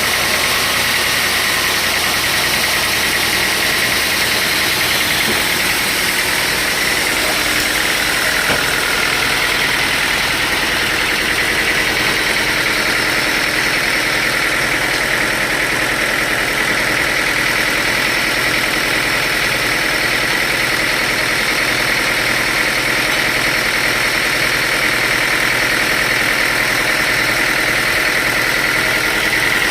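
Sawmill saw and machinery running steadily, with a constant high whine over a broad mechanical noise.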